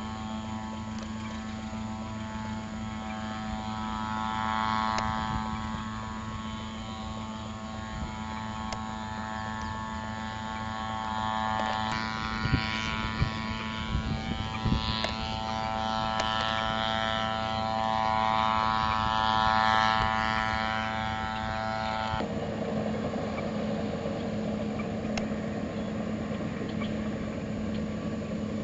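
Farm tractor and field machinery engines running steadily, the engine note changing abruptly twice as different machines take over.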